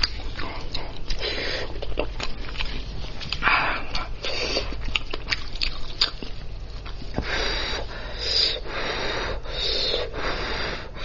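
Close-miked eating of spicy braised lamb's head: wet chewing, lip smacks and sucking, with many short sharp clicks at irregular intervals over a steady low hum.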